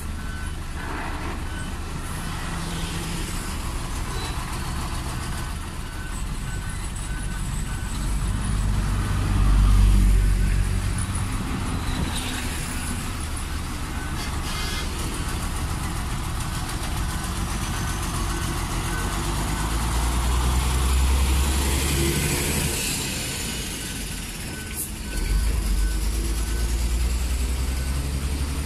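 Diesel engines of a dump truck and a hydraulic excavator running steadily, with a short electronic warning beep repeating about once or twice a second. Passing road vehicles swell louder several times, the last and nearest near the end.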